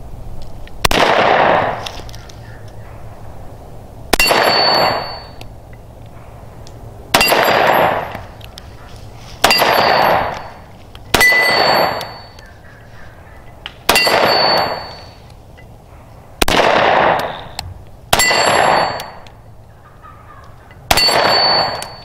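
Zastava M57 Tokarev pistol firing 7.62x25mm rounds. Nine single shots come about two to three seconds apart, each a sharp crack followed by about a second of echo dying away.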